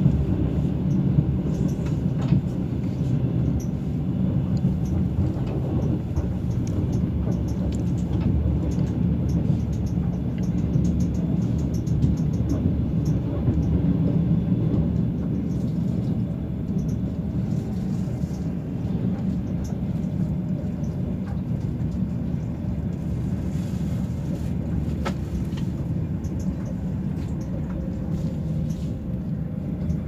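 Steady low rumble of a moving train heard from inside the carriage, with a few faint ticks.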